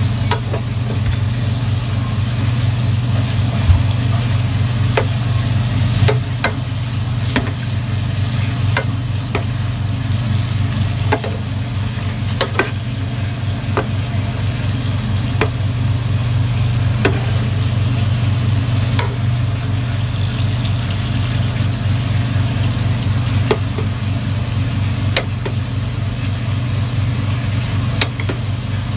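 Dough balls deep-frying in a pot of oil, the oil sizzling steadily with scattered sharp clicks and pops, over a steady low hum.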